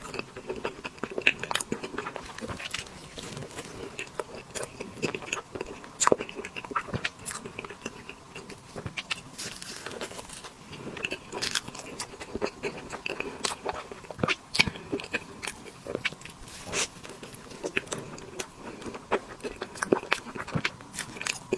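Close-miked eating of tiramisu cake: chewing with steady, irregular wet mouth clicks and smacks.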